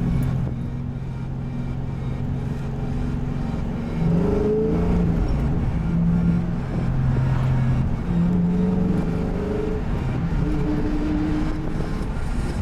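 Pontiac GTO's LS2 V8 through a Spintech cat-back exhaust and Kooks headers, droning inside the cabin while driving. The note holds steady, rises as the engine revs about four seconds in, then moves up and down with the throttle.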